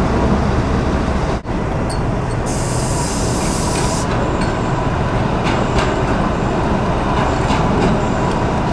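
Street traffic with an electric light rail tram rolling past on street track. The rumble is steady, with a faint steady tone, and a short high hiss comes about two and a half seconds in.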